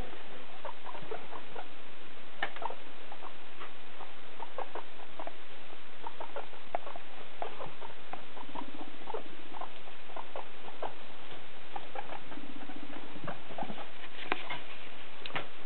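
Guinea pigs in their cage making many short, separate squeaks and clicks. About halfway through, and again a few seconds later, comes a low pulsing rumble, each about a second long.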